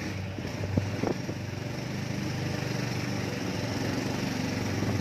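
Vehicle-mounted mosquito fogging machine running ahead, a steady engine-like drone, with two short knocks about a second in.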